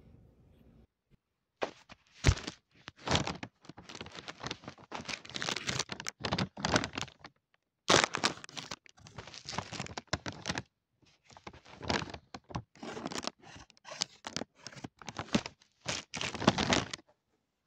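Close, scratchy rustling and crackling in irregular bursts, with a few sharp knocks.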